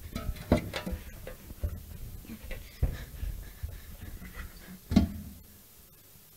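A large metal pot is picked up, carried and knocked about, with a faint ringing in the middle, then set down on a wooden box with a loud clank about five seconds in. Bare footsteps thud on the stage boards in between.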